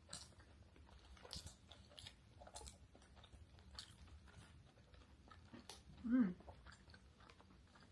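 Faint chewing and mouth sounds of a person eating an egg sandwich, in soft irregular clicks. There is a brief voiced murmur about six seconds in.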